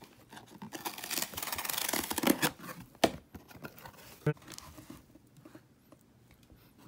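A cardboard box of half-dollar coin rolls being torn open: a ripping tear lasting about two seconds, then a sharp click and a knock as the box is handled.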